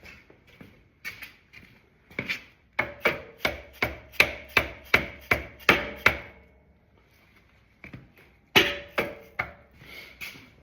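Repeated tapping on the engine-mount through-rod of a 1974 BMW R90S airhead to drive it further through the frame and engine. A quick run of about a dozen sharp taps comes at roughly three a second, some with a brief metallic ring, then a pause, then a few more taps near the end.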